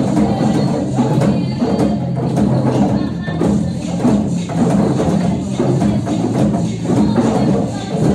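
School drumming ensemble playing a steady, continuous rhythm of drums and other percussion.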